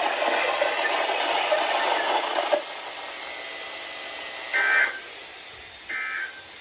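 Weather radio receiver hissing with static, which drops to a quieter hiss about two and a half seconds in. Near the end come two short digital data bursts about a second and a half apart: SAME end-of-message tones marking the close of the weekly test message.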